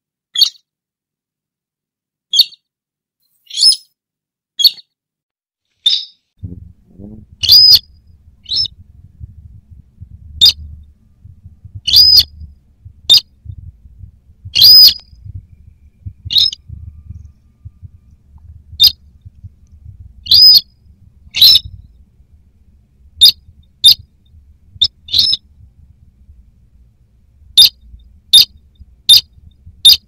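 Sintar rail calls on a bird-lure recording: short, sharp, high calls repeated at uneven spacing, about one a second. A faint low rumble sits under the calls from about six seconds in.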